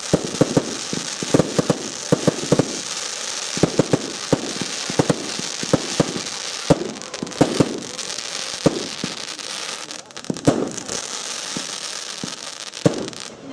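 Aerial fireworks going off: many sharp bangs in quick, irregular succession from shells launching and bursting, over a steady hiss.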